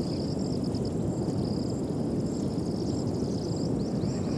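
Open-field ambience: insects chirping in high, repeated trills that come and go, over a steady low rumble.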